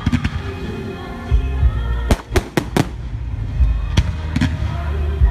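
Fireworks bursting in the air, sharp bangs in a quick run of four about two seconds in and two more a little later, over loud background music with sustained tones.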